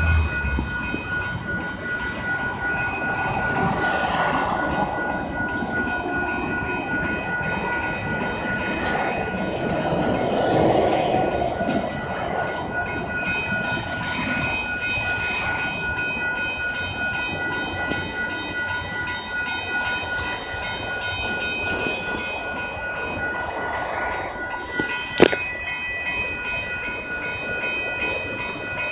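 Norfolk Southern freight train's cars rolling steadily through a grade crossing, wheels clattering on the rails, while the crossing's warning bell keeps ringing. A single sharp knock about 25 seconds in.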